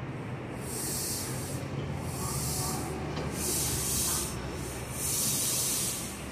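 Subway train's air system hissing in about five separate bursts of roughly a second each, over a steady low hum from the train.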